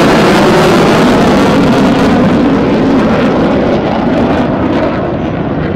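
Twin General Electric F414 turbofan engines of a Boeing F/A-18F Super Hornet: loud, steady jet noise that slowly fades as the jet flies away, its hiss dying off toward the end.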